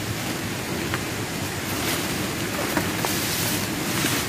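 Rustling and swishing of a bundle of abaca suckers, stalks and leaves brushing together, as it is carried and set down on the ground. Under it runs a steady rushing noise, heaviest around 2 s, 3 s and near the end.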